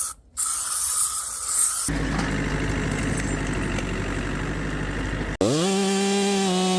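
Short clips cut together: a brief hiss, then an engine running steadily at a low pitch, then, about five seconds in, a two-stroke chainsaw revving up quickly and held at full throttle.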